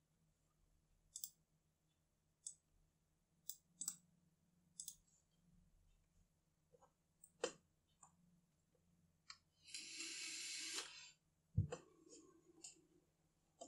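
Near silence broken by sparse faint clicks and taps, about eight in all. About ten seconds in comes a hiss lasting about a second, and a sharper thump follows shortly after.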